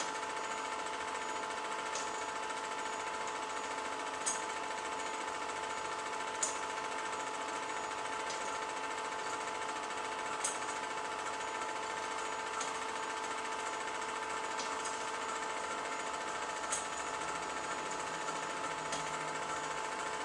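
Home-movie film projector running: a steady mechanical clatter and whir with a constant hum, broken by a few faint clicks.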